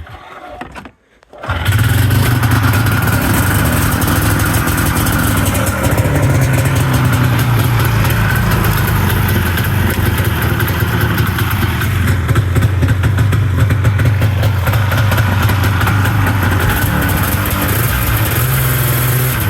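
Yamaha V-Max's V4 engine starting about a second and a half in, with a poof as it fires, then idling steadily. This is its first run after the exhaust leaks were patched, and the owner thinks it sounds better than it did.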